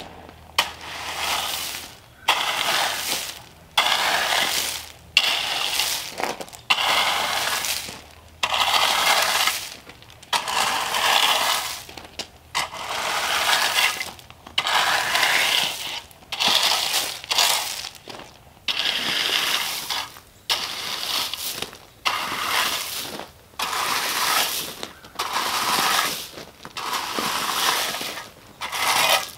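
A rake dragged through loose gravel in repeated strokes, a scraping crunch roughly once a second.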